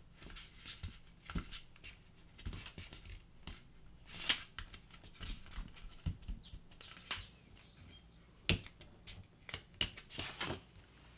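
Hands pressing and flattening a lump of Play-Doh on a tabletop: scattered soft taps, clicks and rustles, with a sharper tap about four seconds in and another about eight and a half seconds in.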